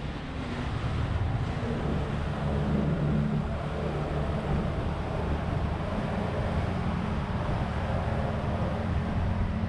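Boat engine running steadily underway, a low even drone.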